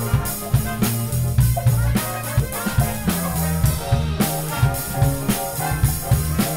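Live big band playing a funk groove: electric bass line and drum kit, with the horn section.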